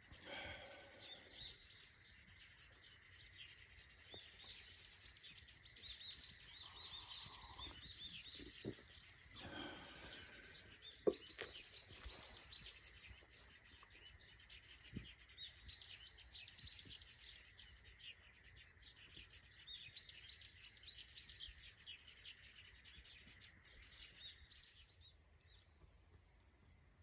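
Small birds chirping faintly in rapid runs of high notes, dying away near the end. A single sharp click comes about eleven seconds in.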